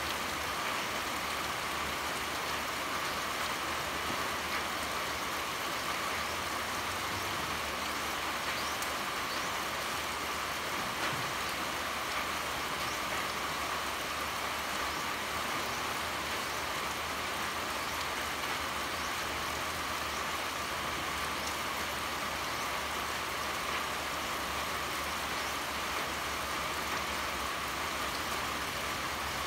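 Steady pouring rain: an even, unbroken hiss with faint scattered drop ticks.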